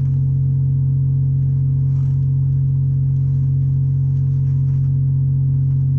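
Steady low drone of ship's machinery, holding a few constant tones without change.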